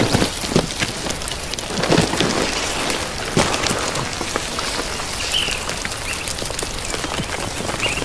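Outdoor ambience of steady rain pattering, full of fine drop clicks, with a few heavier knocks in the first two seconds. A bird gives two short chirps, about five seconds in and near the end.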